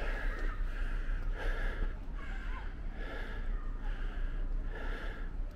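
A man breathing hard and rhythmically close to the microphone, about one breath every three-quarters of a second: he is out of breath from climbing a steep trail.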